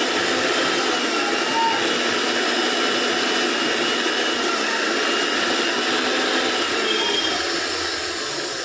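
Electric mixer grinder running flat out: a steady motor whine over a loud whir, easing off slightly near the end.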